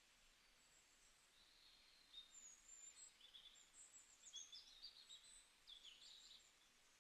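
Near silence with faint, scattered high bird chirps, thickest in the middle stretch.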